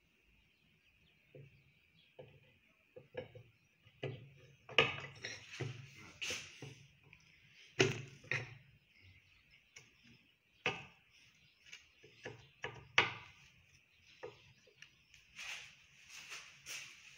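Irregular metallic knocks and clinks of engine parts and hand tools being handled on an engine block on a workbench, a few sharper knocks a second or two apart, over a faint steady high-pitched hiss.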